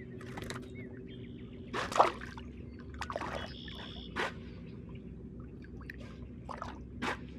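Water splashing and trickling beside a kayak: a handful of short, separate splashes, the loudest about two seconds in.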